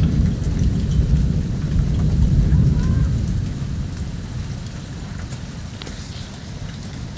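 Thunder rumbling for the first few seconds, then dying away about halfway through, over steady rain with scattered ticks of falling drops.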